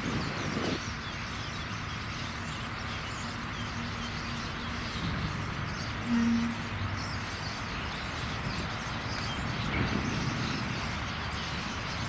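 A flock of common starlings feeding in a cherry tree, many thin overlapping chirps and whistles, over a low background rumble with a brief low hum about six seconds in.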